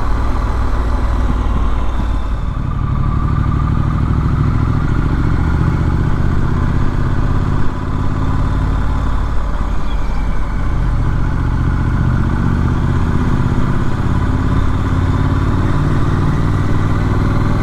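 Triumph Street Scrambler's 900 cc parallel-twin engine running under way, heard from the rider's position, with a short dip in the engine note about nine seconds in.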